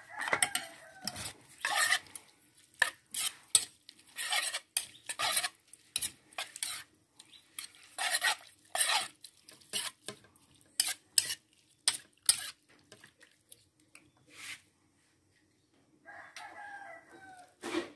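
Metal spoon scraping and clinking against the bowl in quick irregular strokes as minced duck laab is tossed with its seasoning, stopping a few seconds before the end. A rooster crows at the start and again near the end.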